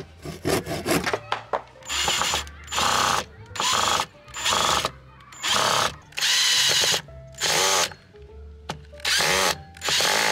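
A handsaw rasps through a small wooden block for about the first second. Then a cordless drill drives screws into wood in short bursts, about nine runs of under a second each with one longer run in the middle, with a high motor whine.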